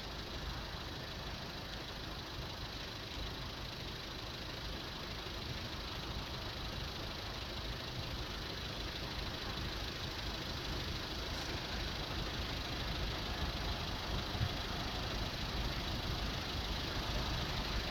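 Low, steady rumble of an approaching Class 66 diesel locomotive hauling a freight train, growing slowly louder.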